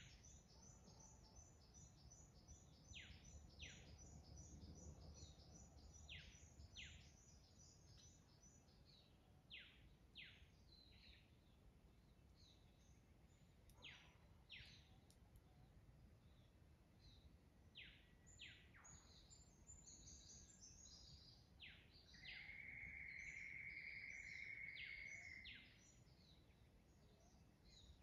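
Faint dawn chorus of forest birds: pairs of quick falling whistles repeated every few seconds, a fast run of high repeated notes through the first third, and a steady held note about three seconds long near the end, the loudest sound.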